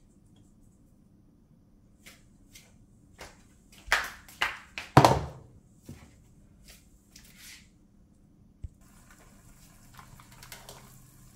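A string of sharp knocks and clatters, loudest about four to five seconds in. Near the end, hot olive oil starts to sizzle and crackle steadily as a raw salmon ball goes into the pan to fry.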